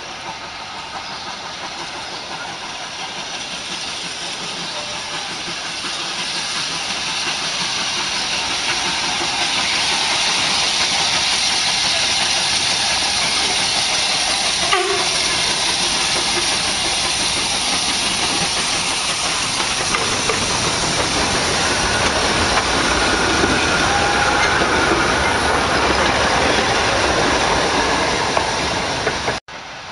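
A 1925 Côtes-du-Nord steam locomotive approaching and passing close by with a green carriage, steam hissing and wheels running on the rails. It grows louder over the first ten seconds, stays loud with a deeper rumble as the carriage goes by, and cuts off suddenly near the end.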